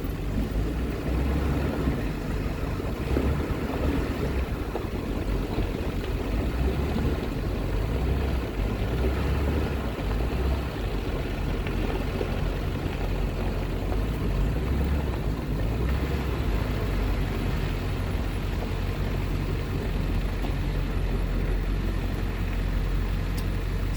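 Wind buffeting the microphone in uneven gusts, over a steady low rumble.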